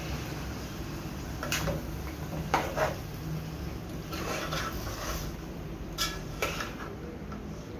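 A silicone spatula stirring chicken in an aluminium pot, knocking and scraping against the pot's sides a handful of times over a steady low hum.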